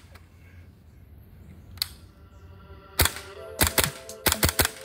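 GHK AKM gas-blowback airsoft rifle firing: a single click near two seconds in, then a quick string of about seven sharp shots starting about three seconds in, each with the snap of the blowback action.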